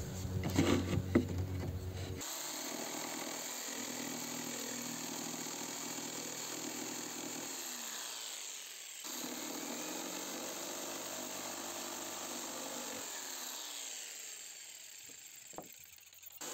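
Bosch PST 800 PEL jigsaw sawing through a wooden board, a steady buzzing cut that breaks off briefly midway and dies away near the end, followed by a single click.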